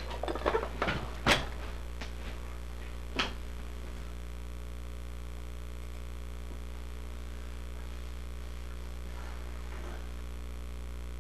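Steady low electrical hum, with a few sharp clicks and knocks in the first few seconds, the sharpest about a second in.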